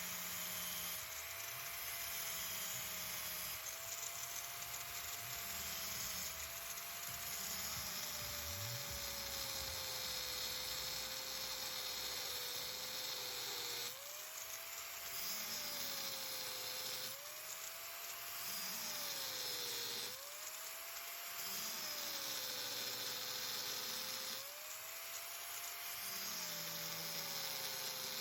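A small electric power tool's motor whining steadily over a hiss. Its pitch sags, then jumps back up several times in the second half, as the tool is pressed into the work and eased off.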